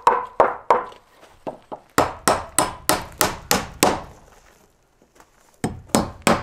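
Hammer driving nails into wood: runs of quick, even strikes, about three a second, the first few with a short ringing tone, broken by a pause of a second and a half before the hammering resumes.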